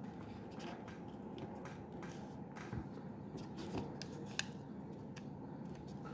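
Origami paper being folded and creased by hand: faint scattered crinkles and rustles, with one sharper tick about four seconds in.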